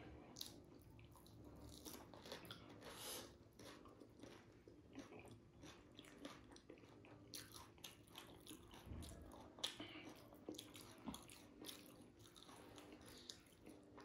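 Faint mouth sounds of dahi puri being eaten: the crisp puri shells crunching and the yogurt-filled puris being chewed, in an irregular string of small crackles, one louder about nine and a half seconds in.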